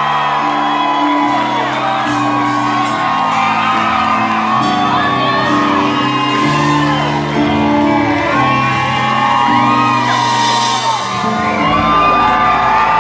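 Live rock band playing held, sustained chords to close a song, with audience whoops and shouts over the top.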